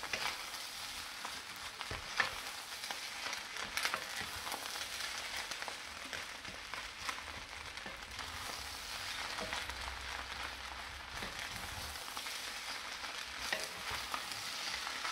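Fried rice sizzling in a wok over turned-up heat while it is stirred, with frequent short clicks and scrapes of the utensils against the pan.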